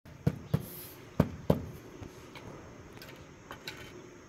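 Mason's hammer tapping a marble strip down into a bed of wet mortar: four dull knocks in two pairs in the first second and a half, then a few lighter clicks.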